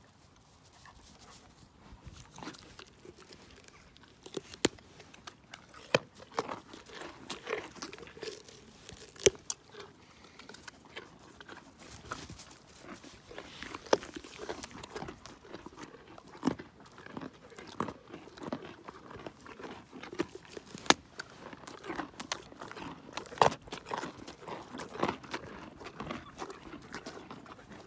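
A horse biting and chewing carrots close up: loud, irregular crunches and snaps, several a second at times, over a softer grinding of teeth.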